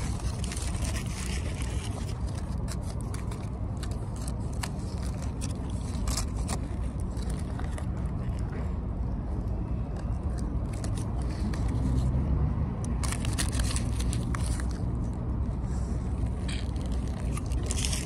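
Aluminium foil and a paper wrapper crinkling and rustling as a burrito is handled and eaten, many short crackles over a steady low rumble in a car cabin.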